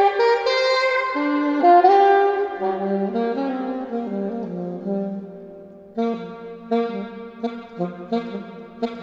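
Solo alto saxophone improvising: a phrase that steps downward into the low register and fades away, then short, detached low notes in quick succession from about six seconds in.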